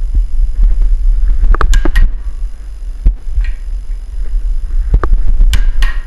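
Click-type torque wrench being pulled on the front hub bolt toward 175 foot-pounds: sharp metal clicks in two clusters, about one and a half seconds in and near the end, over a heavy low rumble.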